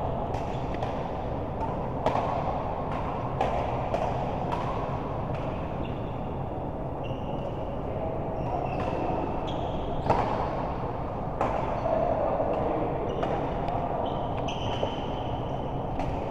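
Doubles play on an indoor court: shoes squeaking briefly on the floor again and again, with irregular sharp hits over a steady hall hum.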